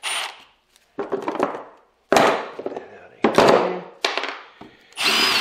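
Cordless drill run in short bursts to back out the 10 mm bolts holding the scroll compressor's housing together, with a high motor whine, and sharp knocks and clatter between the bursts.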